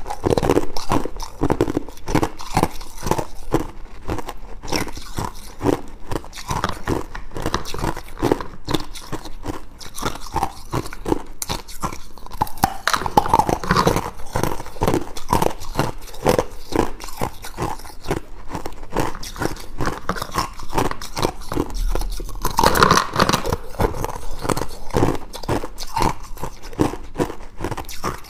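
Clear ice cubes being bitten and chewed close to the microphone: a continuous run of sharp, crisp crunches several times a second.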